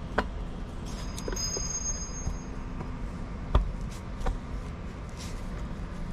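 A few sharp clicks and knocks from metal pump parts being handled and pressed into place, the loudest about three and a half seconds in, over a steady low shop hum.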